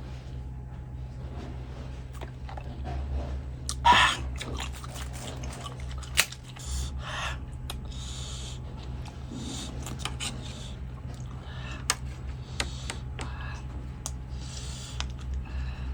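Close-up eating sounds: chewing and mouth noises with scattered sharp clicks, the loudest about four seconds in, over a steady low hum.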